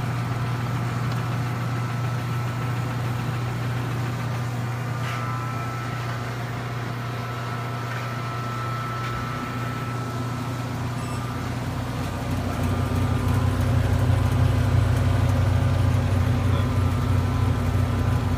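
Stoelting F431 soft serve machine running with a steady mechanical hum from its refrigeration and beater motors. The hum grows louder about two-thirds of the way through.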